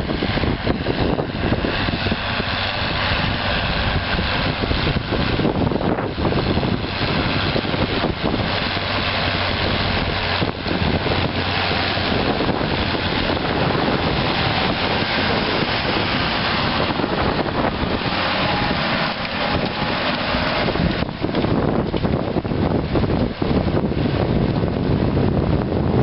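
John Deere 6810 tractor's six-cylinder diesel engine running steadily under load while pulling a four-furrow reversible plough through the soil, with wind buffeting the microphone.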